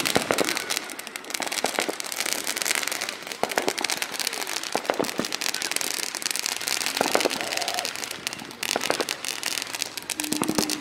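Ground firework fountain crackling continuously with a rapid stream of pops and sharper cracks, the spray of sparks going off without a break.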